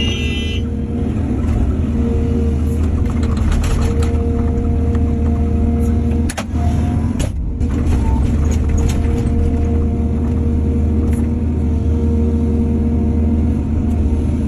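Heavy diesel construction machinery running steadily under load, with a couple of sharp knocks and a brief dip about six to seven seconds in.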